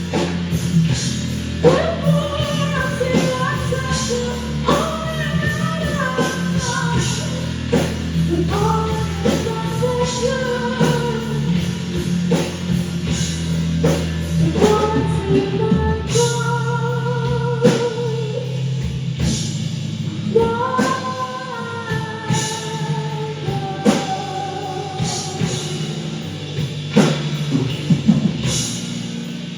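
Rock song with a singing voice over guitar and drums.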